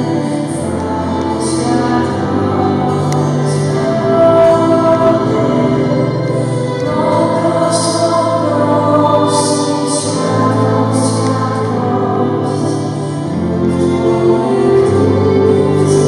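Live worship song: amplified singing into a microphone, accompanied by an electric keyboard and a guitar, with sustained chords and held bass notes.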